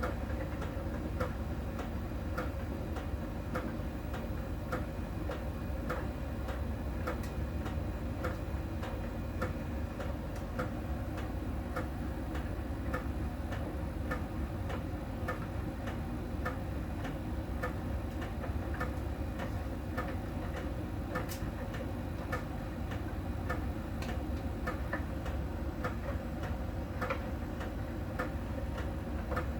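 Miele tumble dryer running, with a low drum hum and a steady, regular ticking. The uploader says a Miele technician traced the ticking to a small round sensor that rolls over the turning drum and ticks each time it touches a contact spot on the drum's outer surface.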